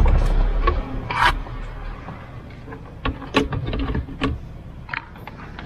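Hands fitting an Android head unit and its cables into a car dashboard opening: irregular plastic clicks, knocks and scrapes, with a dull thump near the start.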